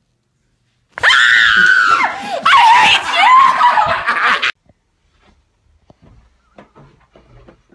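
A person screaming in fright at a scare prank: two long, loud, high shrieks lasting about three and a half seconds, cut off abruptly. Faint knocks and handling noises follow.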